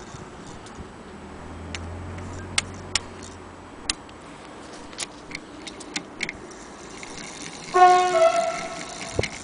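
Scattered light clicks and taps as the Singer 66K hand-crank sewing machine's metal parts are handled. Near the end comes a loud ringing tone that fades over about a second and a half.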